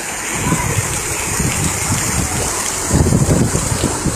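Floodwater rushing in a torrent along a street, a steady loud wash, with wind buffeting the microphone in low rumbles that grow stronger near the end.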